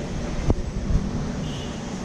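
Steady low rumble of background noise in a crowded church hall, with a dull thump about half a second in and another near one second in.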